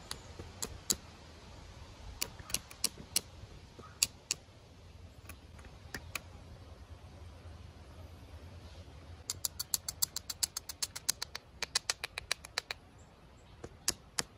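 Copper-tipped billet tapping the edge of a chert flake held in the hand, giving light, sharp stone clicks: percussion flaking to shape the thin back end of an end scraper. A few spaced taps come first, then a quick run of many taps starting about nine seconds in, and a few more near the end.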